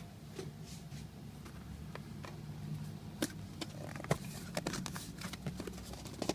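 A small wallet box being handled and opened by hand: scattered light taps and scrapes, with sharper clicks from about three seconds in, over a steady low hum.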